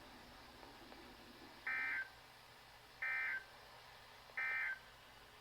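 Emergency Alert System end-of-message data bursts: three short, identical buzzy bursts of digital data tones about 1.4 seconds apart, over faint radio hiss. They mark the end of the severe thunderstorm warning message.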